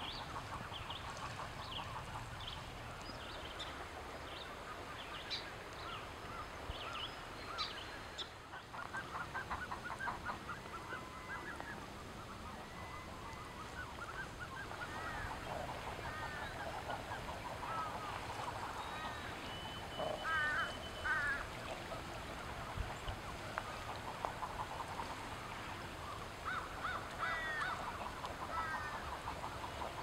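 Common eider hens and ducklings calling: a scattered run of short peeps and low calls, busiest around twenty seconds in.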